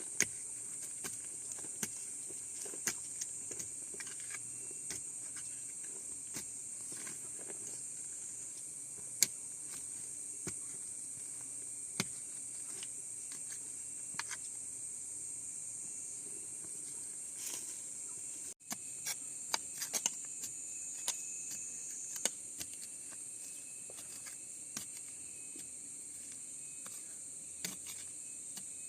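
Steady high-pitched insect chorus, typical of crickets, with scattered sharp clicks and light knocks over it.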